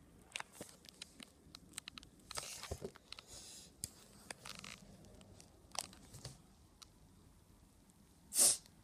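Cardboard toy box being handled: scattered light clicks and rustles, with a louder short scrape near the end.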